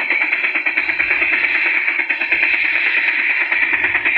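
Electronic RC sound module playing a sampled military sound effect through a small bare loudspeaker: a steady, tinny sound with a fast, even pulsing and no deep bass.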